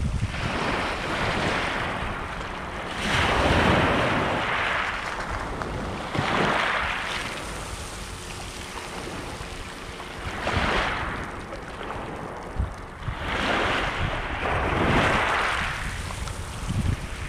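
Small sea waves washing up over a shingle beach of rounded pebbles, the water rushing in and draining back in swells a few seconds apart.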